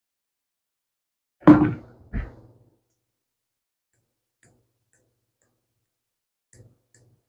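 Two short knocks about a second and a half and two seconds in, the first louder, followed by a few faint ticks.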